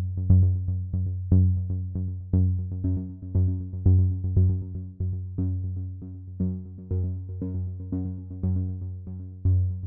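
Electronic hip hop beat: drum-machine hits about twice a second over a heavy, steady bass line and synthesizer chords.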